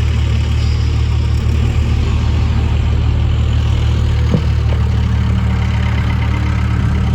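Vehicle engine idling with a steady low hum; a single brief knock about four and a half seconds in.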